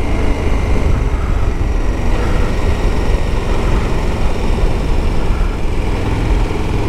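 KTM 1290 Super Adventure S's V-twin engine running with heavy wind rush on the bike-mounted camera, as the motorcycle slows from about 60 to under 50 km/h into a bend. The sound is a steady, low rumble.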